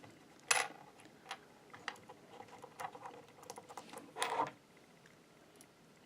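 Small metal Belleville washers clinking as they are taken off a cam post and set down: a sharp ringing clink about half a second in, a run of light ticks, and a louder clatter about four seconds in.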